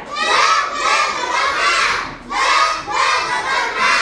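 A class of young children calling out together, many voices at once, in two loud stretches with a short dip about two seconds in.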